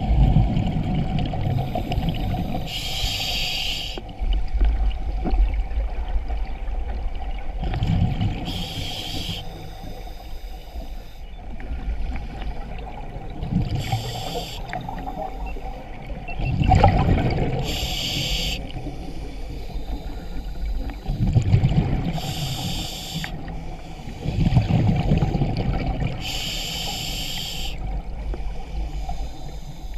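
Scuba diver breathing through a regulator underwater: a low bubbling rumble of exhaled bubbles, then a short hissing inhale, about six breaths at an even pace of one every four to five seconds.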